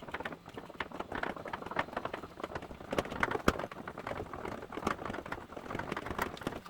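Ratchet with a 10 mm socket clicking in quick, irregular runs as it turns a headlight aiming nut.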